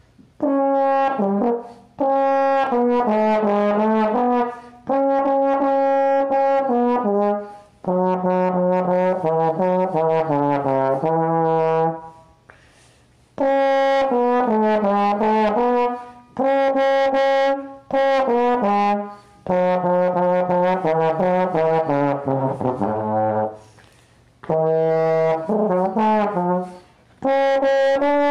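A solo brass instrument playing a song melody, one note at a time, in phrases of a few seconds with short breaks between them and no accompaniment.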